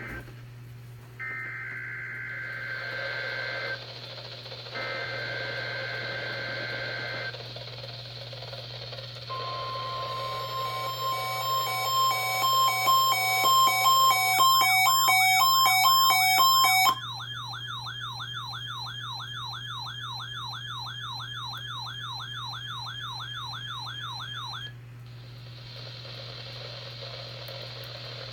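NOAA Weather Radio receiver playing a Required Weekly Test: two screeching bursts of digital header tones, then a steady alert tone that breaks into rapid beeping and grows louder. About 17 seconds in it switches to a quieter warbling alarm, cycling about three times a second, which cuts off near the end and leaves static hiss.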